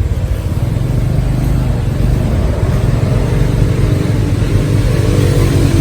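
Motor vehicle engine running with a steady low hum.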